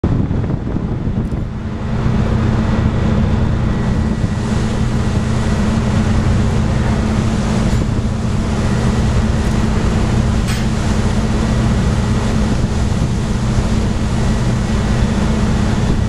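Large artificial waterfall starting up: water begins pouring from the top of a scaffold tower into the harbour, a steady rushing of falling water, with wind on the microphone. About two seconds in the sound grows louder and a steady low hum sets in.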